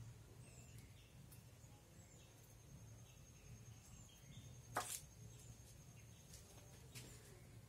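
Near silence over a low steady hum, broken about five seconds in by a single light tap of a ball bearing set down on the wooden workbench.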